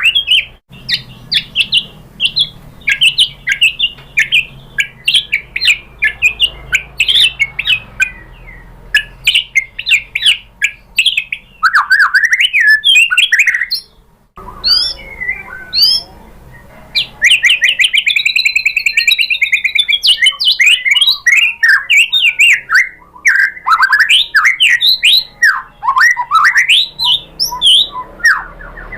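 White-rumped shama (murai batu) singing a fast, varied song of whistles, chirps and trills, with a brief pause about halfway through and a long arching whistled phrase shortly after.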